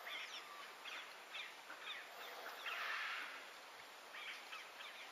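Short, high chirping calls, repeating two or three times a second over a background hiss, with a louder brief hiss about three seconds in.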